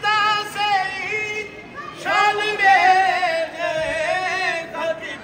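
A single voice singing a devotional chant in long, wavering held notes, in two phrases, the second starting about two seconds in.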